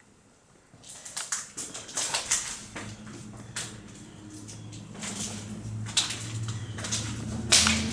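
Footsteps crunching over broken glass, a run of irregular sharp crunches starting about a second in. A low steady hum comes in about three seconds in.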